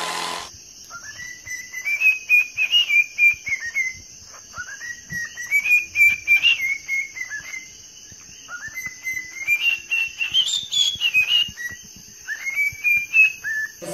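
Whistled, warbling phrases, four of them, each a few seconds long, starting with a rising glide and wavering around a high pitch, over a faint steady hiss.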